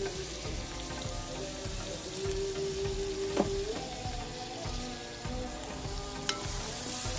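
Chopped tomatoes sizzling in hot ghee and fried onions in a metal pot, with a steel ladle clinking against the pan once sharply near the middle and once more softly near the end. Soft background music with long held notes plays alongside.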